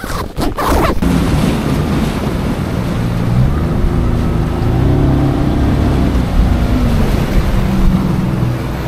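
Small outboard motor on a jon boat running under way through choppy water, its low note wavering, with wind buffeting the microphone.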